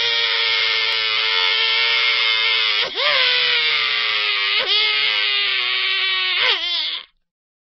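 Cartoon crying sound effect: a long, high wailing cry held on one note. It breaks with a sobbing catch about three seconds in and again near five seconds, wavers near the end, and cuts off just before the end.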